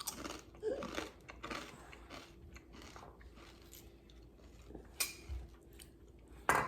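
Crunching and chewing of dry pumpkin spice Special K cereal flakes in the mouth, with a few sharper crackles about five seconds in and near the end.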